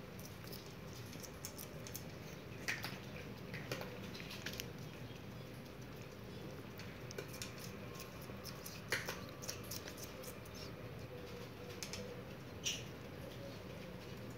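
Guinea pig chewing and nibbling: irregular, scattered sharp crunchy clicks, the strongest about nine seconds in and near the end, over a faint steady hum.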